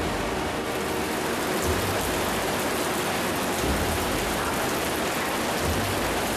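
Mountain torrent, the Großarler Ache, rushing through a narrow rock gorge: a steady, dense rush of white water.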